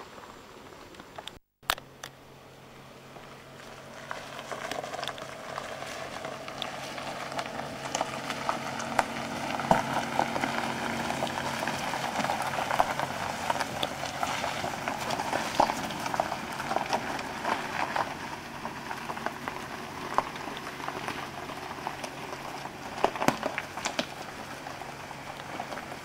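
Compact SUV driving slowly on a loose gravel road: tyres crunching and popping over the stones, with the engine's low steady hum underneath. The crunching builds over several seconds and is loudest in the middle, with a few sharper stone clicks near the end.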